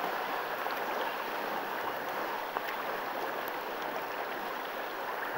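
Seawater lapping and washing over shore rocks: a steady splashing hiss of small waves.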